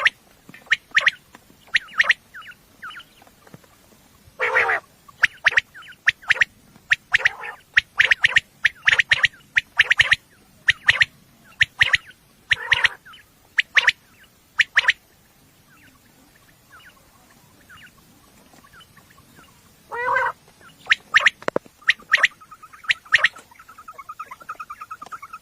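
Quail calling: many short, sharp calls in quick clusters, with a few longer, lower calls among them. After a quiet gap of a few seconds the calls resume, and a fast, even trill starts near the end.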